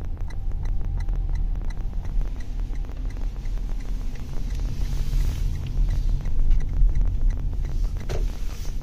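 Steady low road rumble inside the cabin of a 2023 Toyota Mirai hydrogen fuel-cell electric car driving slowly, with no engine note. A faint hiss swells briefly about five seconds in.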